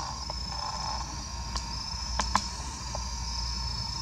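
Insects chirring steadily outdoors, a continuous high trill over a low rumble, with a few short clicks around the middle.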